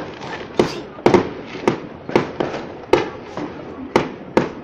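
Fireworks exploding in quick succession: a sharp bang about every half second, around ten in all, with crackling in between.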